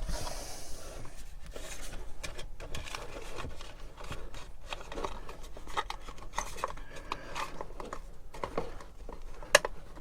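Small irregular clicks and rubbing of wires being handled and their connectors pushed onto fridge terminals, with one sharper click near the end.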